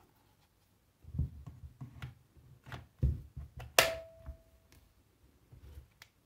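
Plastic knocks as a Parkside 20 V battery pack is handled and slid onto an angle grinder's handle, latching with a sharp click almost four seconds in. A short steady beep, about a second long, follows straight after: the replacement brushless motor control board beeping as it powers up.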